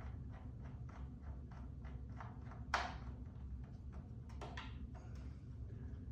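Light clicking of a screwdriver backing out the screws of a graphics-card bracket, a few small ticks a second, with one sharper click about three seconds in, over a steady low hum.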